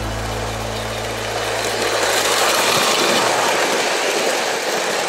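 Model steam locomotive running along its track toward the camera, a steady rolling noise of motor and wheels on rail that grows louder about two seconds in.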